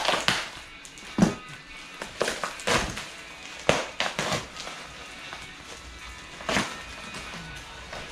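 Packing paper and foam wrap being handled and pulled out of a cardboard box: several short crinkling, rustling bursts, over background music.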